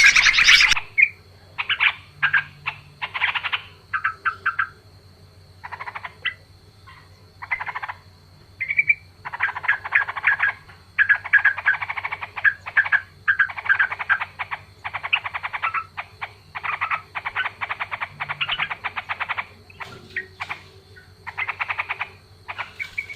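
Sooty-headed bulbuls giving harsh, rapid chattering calls in repeated bursts of half a second to about two seconds with short gaps, over a faint steady hum. A louder, denser burst of calls stops abruptly under a second in.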